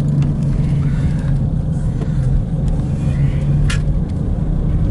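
Steady low hum of a car engine running, heard from inside the car, with one sharp click about three and a half seconds in.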